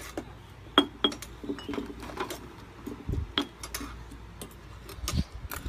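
Metal spoon clinking against a clay mortar and plates: a few sharp, ringing clinks, with a dull knock about three seconds in.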